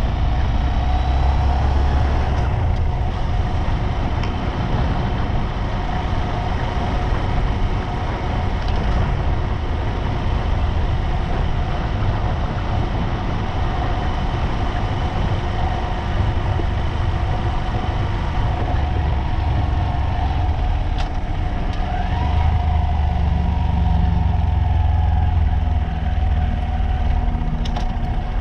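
Steady vehicle engine and road noise while driving at speed, a low rumble with a held engine tone, getting a little louder about three-quarters of the way through.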